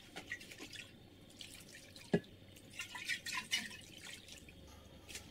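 Faint drips and small splashes of salt brine falling into an enamel pot as it is poured from a glass bowl, with one sharper tick about two seconds in.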